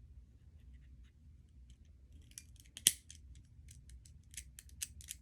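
Small sharp clicks and crackles of plastic being handled, irregular and quickening from about two seconds in, with one louder snap near the three-second mark.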